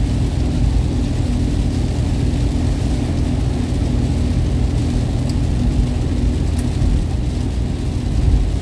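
Steady in-cabin drone of a Toyota Kijang LGX driving on a wet highway: engine hum and tyre rumble with heavy rain hissing on the body and windscreen.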